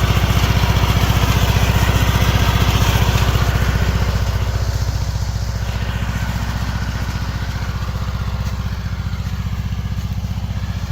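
Riding lawn mower's small engine running steadily with an even, rapid firing pulse, easing a little about four seconds in.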